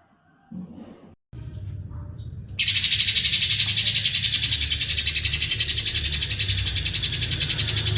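Lovebird calling in a harsh, coarse voice: a few soft chirps, then about two and a half seconds in a loud, long, rapidly pulsing rattling trill that carries on without a break.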